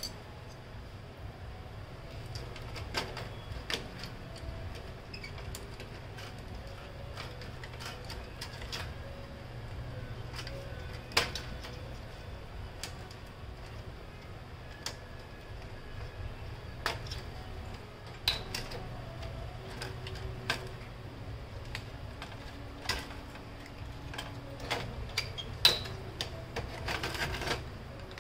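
Irregular clicks and small knocks of plastic and sheet-metal parts being handled while an HP LaserJet Pro M26-series printer is taken apart, with a quick run of clicks near the end, over a steady low hum.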